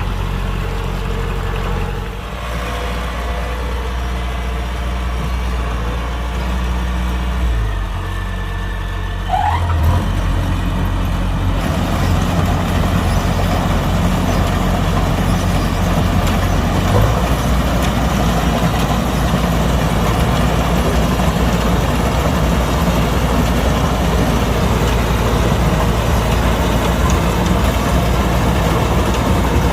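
Kubota DC-105X combine harvester's diesel engine running steadily. About ten seconds in it grows louder, and a wide rushing machinery noise joins the low engine hum and stays.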